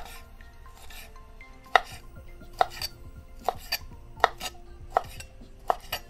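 Kitchen knife chopping cooked shrimp on a wooden cutting board: about ten sharp knocks of the blade on the board at an uneven pace.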